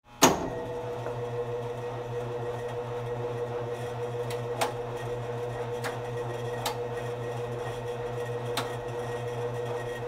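Laundromat machines running with a steady low hum and a fainter higher tone. A sharp click marks the moment the sound cuts in after silence, and a few lighter clicks follow, a second or two apart.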